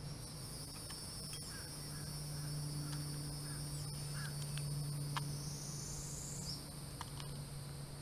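Steady high-pitched drone of insects in the garden, with a low steady hum beneath it and scattered light clicks.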